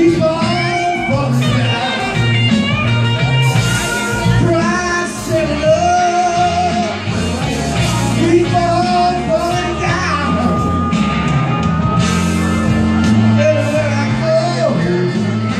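Blues-rock karaoke performance: a man sings over a backing track of bass and guitar, with held, bending notes.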